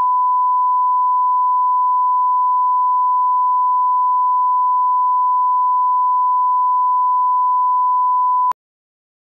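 A 1 kHz line-up reference tone, the test tone played with colour bars: one steady, pure, high-pitched beep that cuts off suddenly about eight and a half seconds in.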